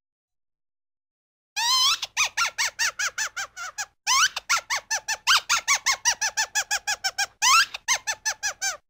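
Squeaky, high-pitched cartoon gopher laugh sound effect: three runs of rapid squeaks at about seven a second, each squeak falling in pitch, the first and third runs opening with a rising squeal. It starts about a second and a half in.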